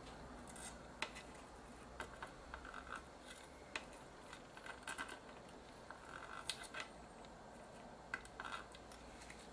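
Faint, irregular small clicks and scrapes of a soldering iron tip dragging excess solder off the pins of a surface-mount IC.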